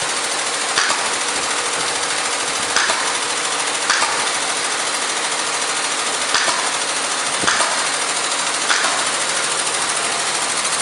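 Steady loud mechanical noise with about six short knocks spread through it, from the hinged wall panels of a portable interpreter booth being swung and handled.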